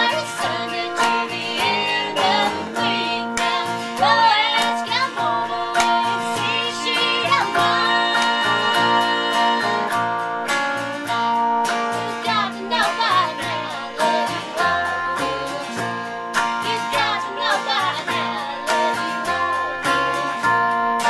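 Live country song: a woman singing over strummed acoustic guitar and an electric guitar.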